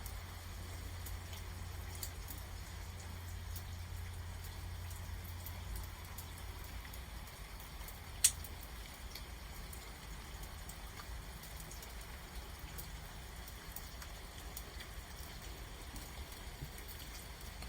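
Rain falling in a thunderstorm, a faint steady patter with scattered drops ticking, and one sharp click about eight seconds in.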